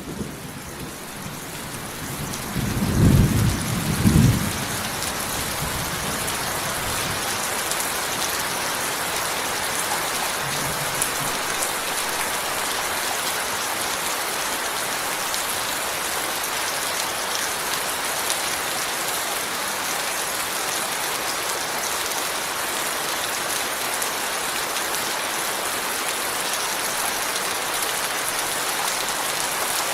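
Steady heavy rainfall, an even hiss throughout. About three seconds in, a low rumble of thunder swells twice and fades.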